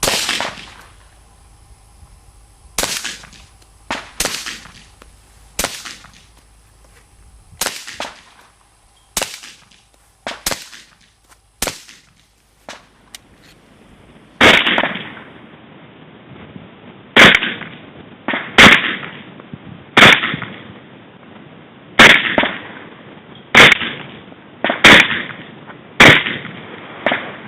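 Suppressed SIG P220 .45 ACP pistol shots through a Silencerco Osprey suppressor, pretty quiet for gunfire: a string of single shots one to two seconds apart. About halfway through, the sound turns duller with less treble and another string of shots follows.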